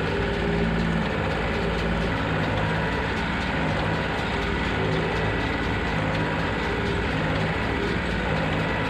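John Deere tractor engine running under steady load while pulling a New Holland 69 small square baler that is picking up and baling hay. A regular low pulse comes about once a second.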